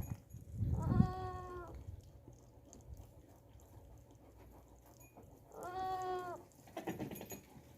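Goat bleating twice, two steady high calls about five seconds apart, each under a second long, with low thumping movement noise around them.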